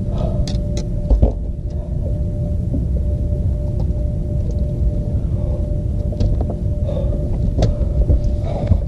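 Steady low rumble under a constant faint hum, with scattered knocks and clicks as a large bass is landed by hand into a bass boat and handled.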